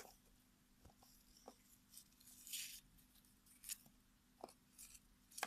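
Near silence with a few faint, short clicks and taps, and one brief soft rustle about two and a half seconds in: small plastic toy figurines being handled and set down.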